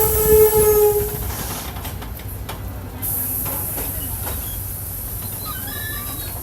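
A loud, steady horn tone cuts off about a second in, leaving the low, steady running of the Mercedes-Benz OF-1722 bus's diesel engine with a few faint clicks.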